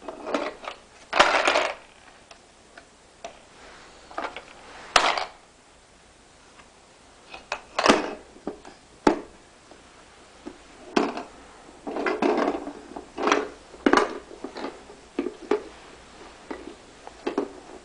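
Irregular knocks, clicks and short rattles of a toy tool box and its toy tools being handled and knocked together, with one sharp knock about five seconds in and a busier run of clattering around twelve to fourteen seconds in.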